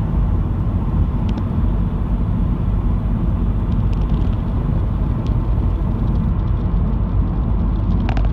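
Inside a 2011 Subaru Impreza cruising at a steady 55 mph, its engine at about 2,000 rpm: a steady low rumble of engine and road noise in the cabin. A few faint clicks come through, with a sharper one near the end.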